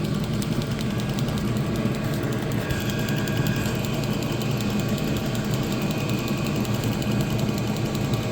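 Homemade diesel heater burn chamber running: a steady, low combustion rumble with a fast flutter that starts abruptly and holds level, fed through a second feed tube.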